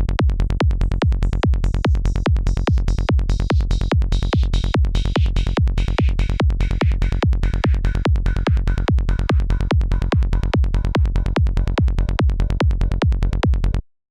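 Psytrance kick drum and synthesizer bass pattern playing on a fast, steady beat. A filter sweeps the bright upper tones of the bass steadily downward. Playback starts and stops abruptly.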